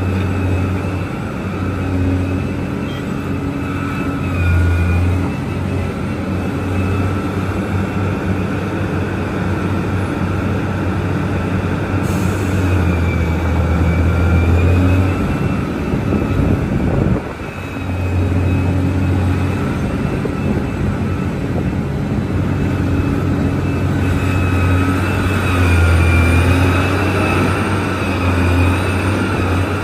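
Large Liebherr mining excavator's diesel engine running under varying load, swelling and easing, with a high whine that rises and falls; the engine dips briefly just past halfway.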